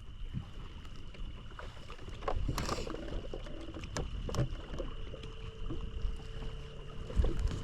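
Low rumble on a fishing boat, with scattered knocks and clicks and a steady high-pitched tone; a second, lower steady tone comes in about five seconds in.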